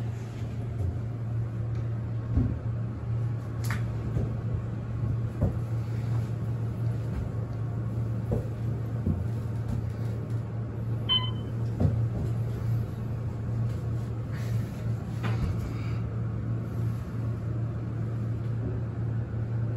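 Otis hydraulic elevator car rising, with a steady low hum from the drive. A single chime sounds about halfway through.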